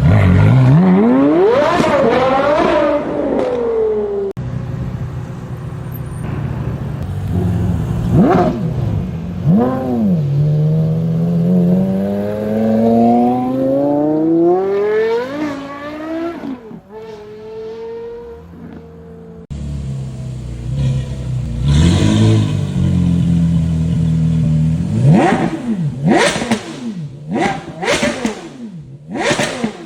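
Porsche Carrera GT's V10 engine and exhaust revving hard, with several long pulls rising in pitch as the car accelerates. Near the end come a quick series of sharp throttle blips, each rising and falling.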